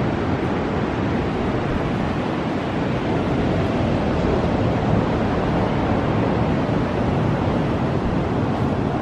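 Pacific surf breaking on the beach, heard as a steady rushing roar of waves, with some wind on the microphone.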